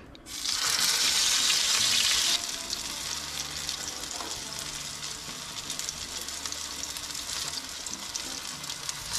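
Potato chapli kabab patties shallow-frying in hot oil in a frying pan. A loud sizzle starts as a patty is laid into the oil, then after about two seconds eases into a steady frying sizzle.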